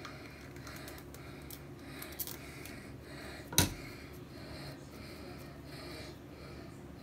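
Faint soft rustling and swishing of hair being detangled in sections, with light clicks. A sharp click about three and a half seconds in is the loudest sound.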